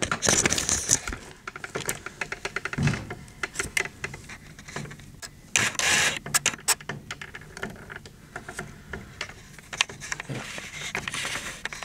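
Handling noise: scattered clicks, small knocks and rustling as the camera is moved in close over a table, with a louder rustle near the start and again about six seconds in.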